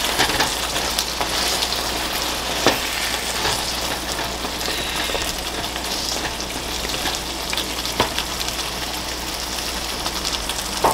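Crab curry sizzling and bubbling in a frying pan as a wooden spatula stirs it, with a few sharp knocks of the spatula against the pan, the loudest about two and a half seconds in and about eight seconds in.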